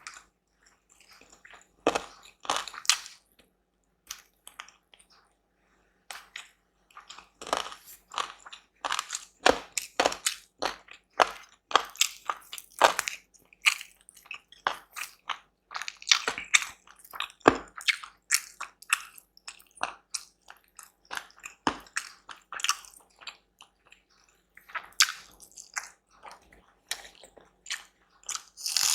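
A person eating close to the microphone: chewing and biting in quick runs of short, sharp mouth sounds, with a pause of a couple of seconds about four seconds in.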